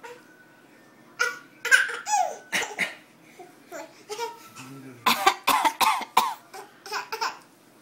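A baby giving short, deliberate fake coughs, mixed with laughter. The sounds come in a few separate bursts, then in a quick run of coughs and laughs past the middle.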